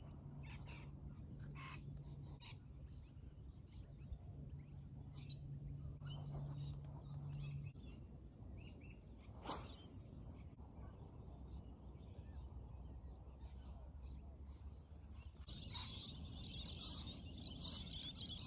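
Faint outdoor ambience with scattered bird chirps, a brief swish about halfway through, and a dense chorus of many small birds chirping that starts near the end.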